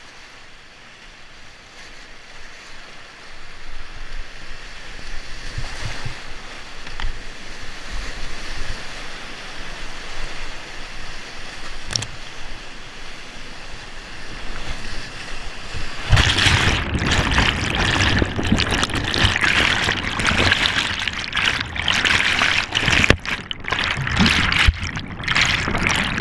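Whitewater rapids rushing past a kayak at high water, growing steadily louder. About two-thirds of the way in it turns suddenly louder and more churning with splashes as the kayak drops into the rapid, and near the end the sound cuts in and out as the camera goes under the water.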